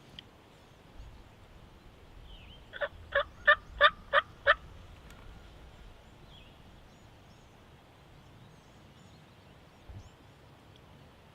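Wild turkey calling: a quick run of six loud, sharp yelps, about three a second, with faint songbird chirps around it.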